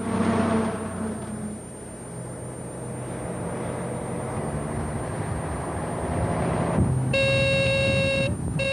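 Car driving with engine and road noise; about seven seconds in, a lane-departure warning alarm sounds a steady electronic buzzer tone for about a second, breaks off briefly and starts again near the end. The buzzer signals that the car has crossed a painted lane line.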